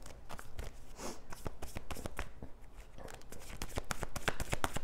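Tarot cards being shuffled by hand: a rapid run of soft card clicks that grows faster and louder over the last couple of seconds.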